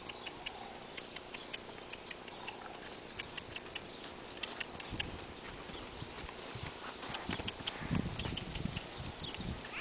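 Welsh cross pony walking on gravel: uneven crunching hoofbeats and clicking stones. Heavier low thumps come in the last couple of seconds.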